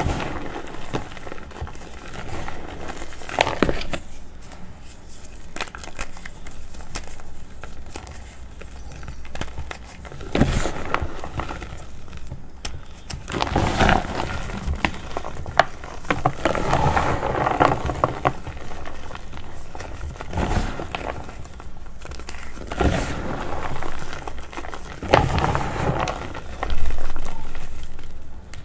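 Hands squeezing and crushing lumps of reformed gym chalk, a dry crackling crunch as the chalky chunks crumble to powder. It comes in uneven bursts, busiest around the middle and loud again near the end.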